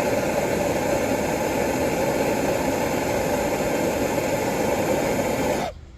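Handheld gas torch burning with a steady hissing rush as it heats the seized generator of a Coleman 200A lantern. It is shut off abruptly near the end.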